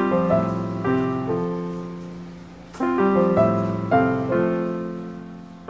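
Background piano music: soft chords and a melody, each struck note fading away, with a new phrase begun about three seconds in.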